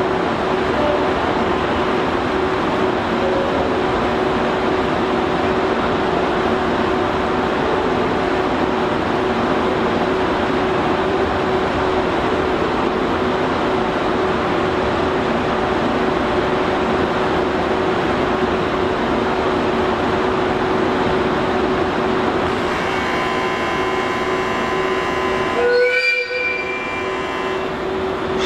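Train noise at a railway station: a steady rushing sound with a constant hum running under it. Several steady tones join in near the end, and the sound briefly drops and shifts a couple of seconds before the end.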